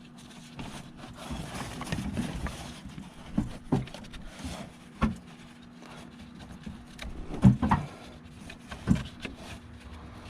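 Scattered clicks, knocks and rustling of hand work as the electrical connector is plugged back onto a Mercedes Sprinter's fuel pump, over a faint steady hum. The loudest knock comes about seven and a half seconds in.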